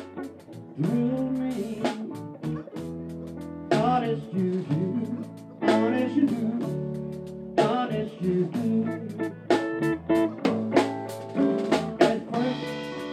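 Live blues band playing: electric guitar, bass guitar and drum kit, with a man singing into the microphone.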